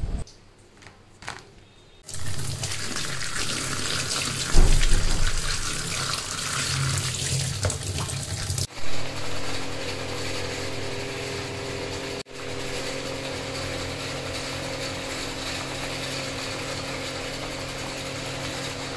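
Kitchen tap running water for several seconds as sweet limes are rinsed in a plastic colander. After a break, a steady hiss with a low hum continues.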